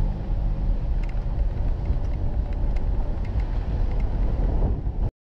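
Off-road 4x4 driving along a gravel track, its engine and tyres making a steady low rumble as heard from a camera mounted on the hood. The sound cuts off abruptly near the end.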